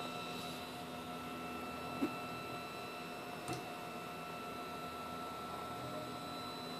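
3D printer running a laser engraving job, a faint steady whine of several fixed tones from its motors and fan as the laser head scans a line across the plywood. There are two small ticks, about two seconds and three and a half seconds in.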